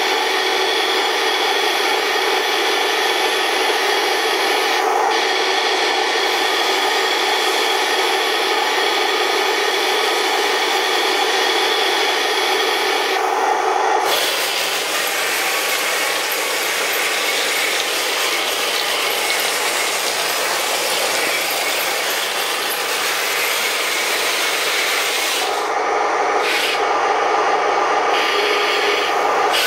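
Full-metal RC Tiger I tank running: a steady mechanical whine of its turret traverse gearing in the first half, giving way about halfway through to a steady rasping clatter of the metal tracks and drive gears on a wooden floor. The whine comes back near the end.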